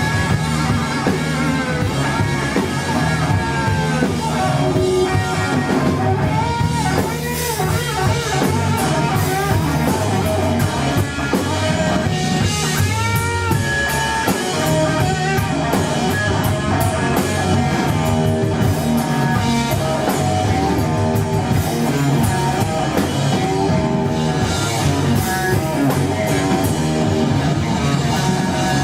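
Live blues-rock trio playing: an electric guitar plays bending, wavering lead lines over bass guitar and a drum kit.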